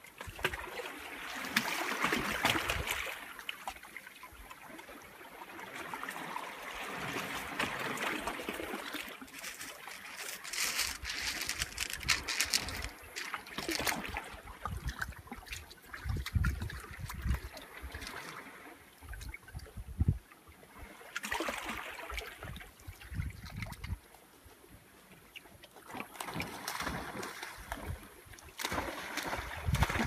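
Small sea waves lapping and sloshing against shoreline rocks, swelling and fading every few seconds. Near the end, splashing from huskies wading through the shallows grows louder.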